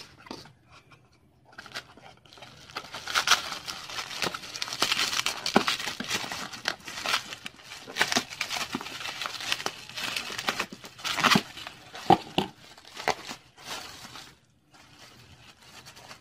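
Plastic packaging crinkling and rustling as it is handled and pulled out of a cardboard box by hand. There is a dense run of crackles from about two seconds in, and it eases off shortly before the end.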